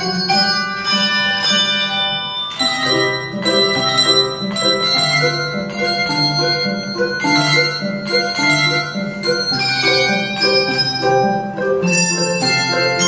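A handbell choir playing a piece: many brass handbells ringing together in chords and melody, with the notes overlapping and ringing on as new ones are struck.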